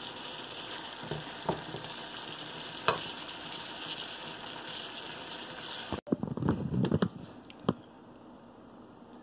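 Pinakbet of vegetables and pork sizzling in a metal pan and stirred with a wooden spatula, with a few scrapes and knocks against the pan. About six seconds in the sizzle cuts off abruptly, and a short run of clattering knocks follows.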